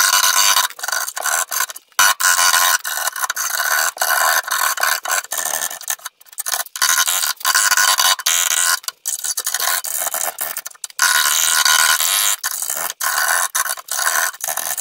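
A sharp hand scraper scraping old, flaking underseal off the painted steel of a classic Mini's rear valance, in short, irregular scratchy strokes with brief pauses between them.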